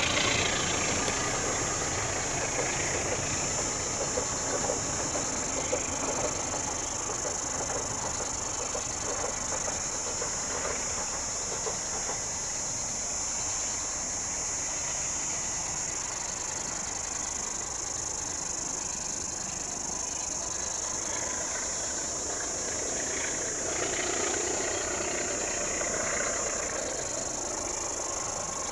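Steady high-pitched insect drone from the trackside vegetation, with the low rumble of a departing passenger train dying away over the first few seconds.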